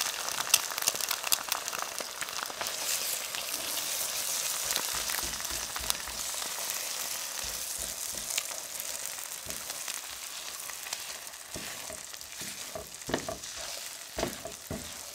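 Two eggs sizzling in melted butter in a frying pan as they are scrambled. The sizzle slowly fades, and several short knocks of the utensil against the pan come in near the end.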